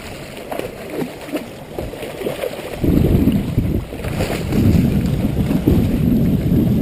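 Hooked bluefish thrashing and splashing at the water's surface beside the rocks. About three seconds in, a loud low rumble takes over.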